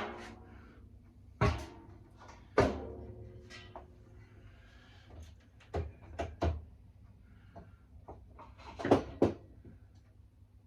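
Metal parts knocking and clanking against each other, about eight separate knocks with short pauses between them, a couple ringing briefly: a tumble dryer's drum bearing kit being handled and fitted at the dryer's metal back.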